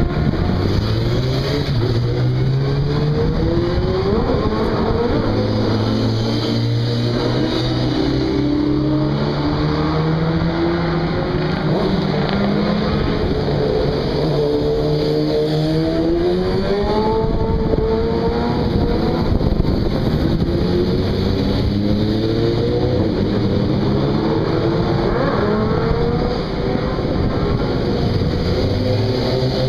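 Several racing motorcycle engines running and revving as the bikes ride past one after another, their pitch rising and falling and overlapping.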